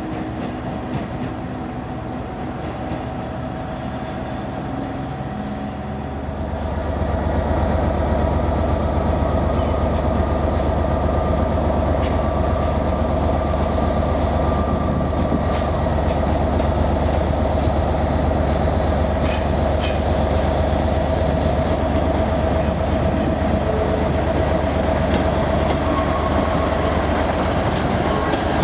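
ScotRail Class 158 diesel multiple unit running slowly past, its underfloor diesel engines humming steadily and growing much louder about six seconds in. Two brief high wheel squeals come in the second half.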